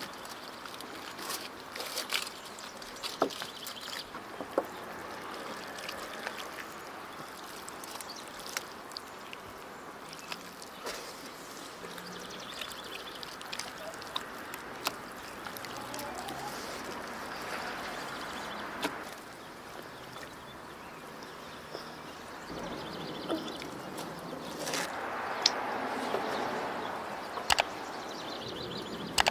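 Roasted whole goat being pulled apart by hand on a foil-lined tray: moist tearing and rustling, with scattered small clicks and taps.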